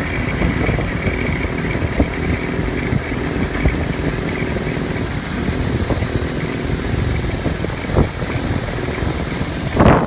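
Off-road buggy engine running in a steady low rumble while driving over a rough dirt road, with a few knocks from bumps and a louder thump near the end.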